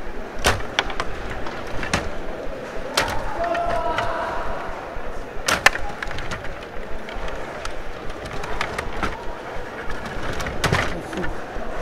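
Rod hockey game in play: the metal rods rattling in the table as they are pushed, pulled and twisted, with sharp clacks of the puck against the plastic players and boards. The loudest clack comes about five and a half seconds in.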